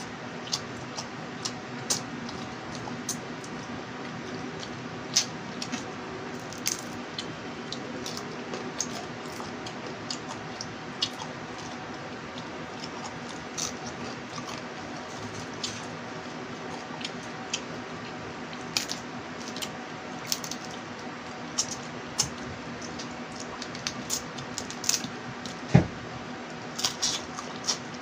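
Small crabs (alimasag) being cracked and picked apart by hand and eaten close to the microphone: irregular sharp shell cracks and clicks with wet squishing and chewing, and one louder knock near the end.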